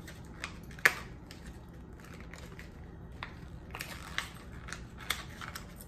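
Plastic blind-bag toy packaging crinkling as it is handled and torn open, with scattered sharp clicks, the sharpest about a second in.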